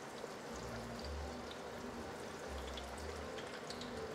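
Hot oil sizzling and bubbling steadily in a stainless steel pot as panko-breaded fish nuggets deep-fry, with faint scattered crackles.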